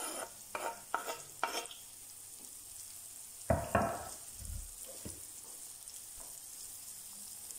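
Chicken pieces and butter sizzling in a frying pan, with a few quick knife scrapes as chopped garlic is pushed off a wooden board into the pan, a louder knock about three and a half seconds in, then a wooden spatula stirring the garlic in.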